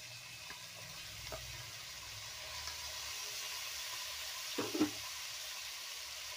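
Toor dal, onion, green chillies and freshly added tomato frying in oil in a kadai: a steady sizzling hiss with a few faint clicks. A short louder sound about four and a half seconds in.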